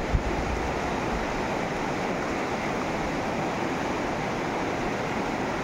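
Steady rushing of a fast, rocky mountain river flowing past.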